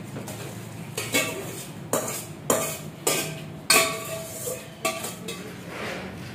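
Stainless steel pots and a spoon clinking together: a run of about six sharp metallic knocks, each ringing briefly, as boiled lentils are scraped and tipped from one steel pot into another.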